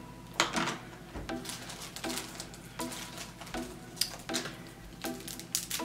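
Quiet background music with short notes repeating at an even pace, with light clicks and rustles of objects being handled.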